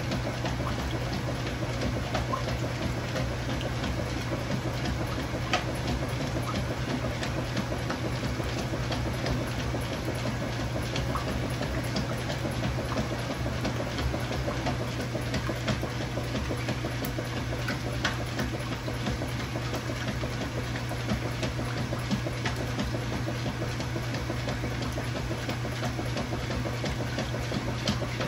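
Kenmore top-load washing machine with a KitchenAid Dual Action Agitator running a wash cycle: a steady low motor hum under continuous churning water, with small irregular ticks.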